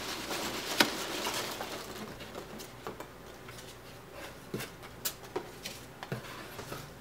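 Foam packing peanuts rustling and squeaking as a boxed figure is pulled out of a cardboard shipping carton. There is one sharp knock about a second in, then scattered light taps and clicks as the box and loose peanuts shift about.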